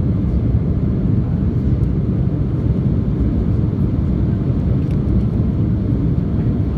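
Airliner cabin noise: a steady low rumble of jet engines and rushing air, heard inside the cabin during the climb after takeoff.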